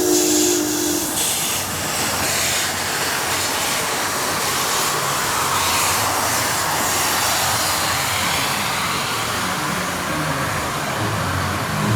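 Narrow-gauge steam train: a steam whistle's chord cuts off about a second in, then the train running with a steady rumble of rolling stock and hissing steam.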